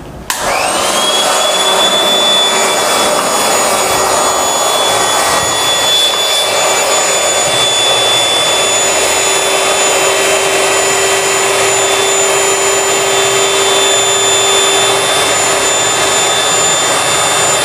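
Electric air pump switching on and running steadily, blowing air into an inflatable PVC air bed; its whine rises as the motor spins up in the first second, then holds.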